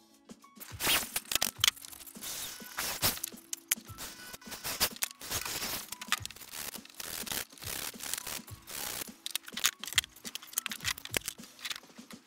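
Irregular scraping and clattering of steel pieces being handled and shifted on a wooden block, over faint background music.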